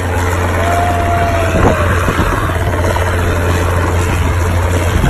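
Helicopter overhead, its rotor making a steady low drone. A thin high tone sounds briefly about a second in.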